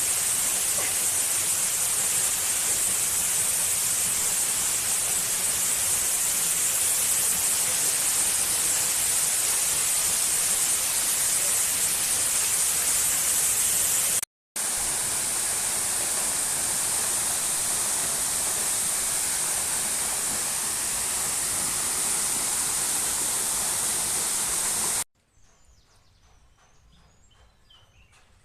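Steady rushing water, a constant hiss-like roar with a brief break about halfway through. It stops abruptly near the end, leaving a quiet background with faint bird chirps.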